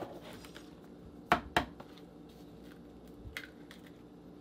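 An egg knocked twice against the rim of a small bowl to crack it open: two sharp taps in quick succession, then a lighter click, over a faint steady hum.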